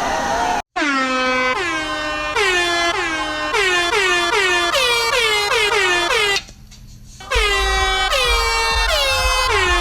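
Meme-style music built from rapid air-horn blasts, each note sliding down in pitch, starting after an abrupt cut about a second in. The track drops out briefly around six and a half seconds, then comes back with a heavy bass under the horns.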